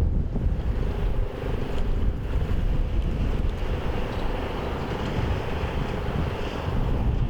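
Wind buffeting the microphone with a heavy low rumble. A faint steady hum sits underneath from about a second in.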